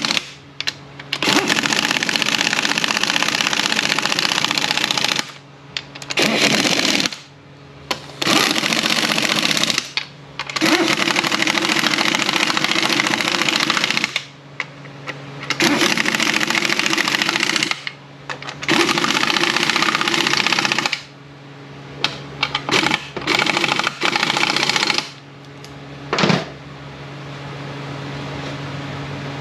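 Air wrench running down the 15 mm case bolts on a transfer case, in runs of one to four seconds with short pauses between, then a few short bursts as the last bolts are snugged. Near the end there is a single sharp clack, then only a steady low shop hum.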